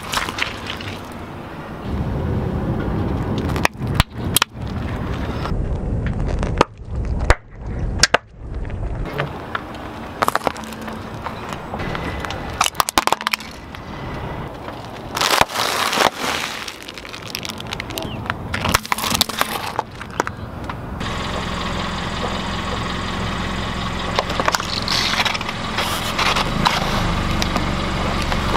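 A car tyre slowly crushing things on asphalt, in a series of short clips: tomatoes squashing, then plastic correction-tape dispensers giving sharp cracks and snaps. In roughly the last seven seconds a car engine idles steadily as the tyre presses onto a plastic Coca-Cola bottle.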